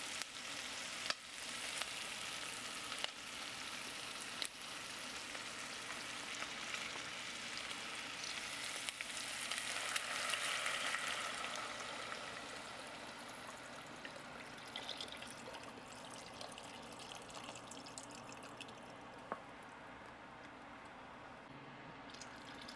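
Pork belly sizzling in hot oil in a pot, with a few light knocks in the first seconds. About ten seconds in, coconut water is poured over the meat: the sizzle swells, then dies down under the sound of the liquid pouring.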